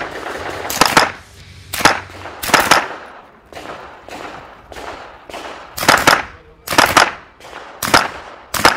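.22 rimfire semi-automatic rifle fired in quick pairs of sharp shots, each with a short echo, about a dozen shots in all, with a pause of about three seconds in the middle broken only by fainter pops.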